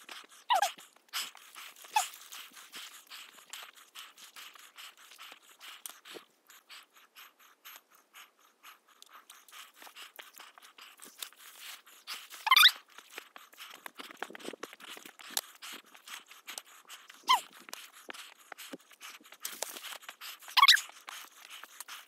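A hiker's footsteps crunching and scuffing on a rocky, overgrown trail, with a trekking pole clicking on stone and shrubs brushing past. A few louder short squeaky sounds stand out, about one every few seconds.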